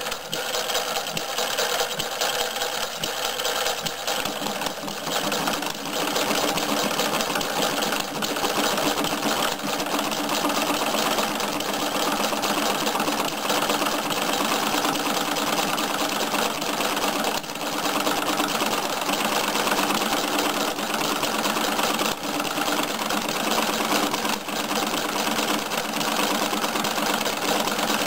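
Small hobby-built Atkinson differential four-stroke model engine, air-cooled, running with a steady, rapid mechanical clatter.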